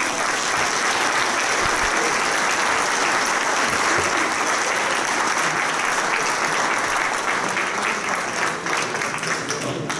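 Audience applauding, steady, then tapering off over the last couple of seconds.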